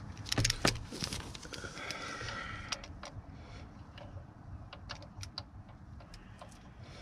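Scattered light metallic clicks and taps as a steel Allen key is fitted into the retaining bolt of an engine's camshaft position sensor, with a cluster of clicks in the first second, over a steady low rumble.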